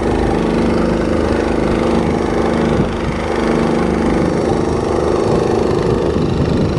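Boat's outboard engine running steadily, with a brief small dip in loudness about three seconds in.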